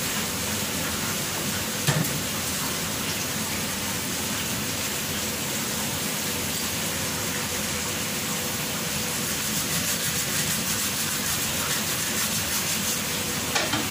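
Food frying in hot oil, a steady sizzling hiss, with a single knock about two seconds in.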